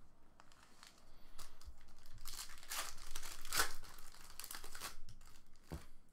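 Foil trading-card pack crinkling and tearing as it is opened by hand, in several short crackly spells, loudest about three and a half seconds in.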